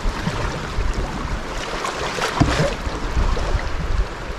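Rushing river water washing around a canoe in rocky rapids, a steady noisy wash, with a few short knocks about two and a half and four seconds in.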